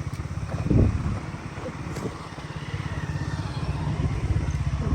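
KTM Duke 200's single-cylinder engine running at low speed on a rough track, with a steady rapid pulsing and a thump just under a second in.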